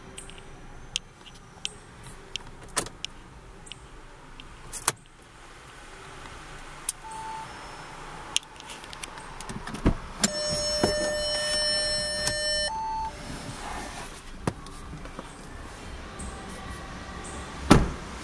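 Scattered clicks and knocks from handling a 2013 Audi A3 Sportback's cabin, with a steady electric whine for about two and a half seconds midway, as from a power-operated part such as the sunroof. A heavy thump near the end is the loudest sound.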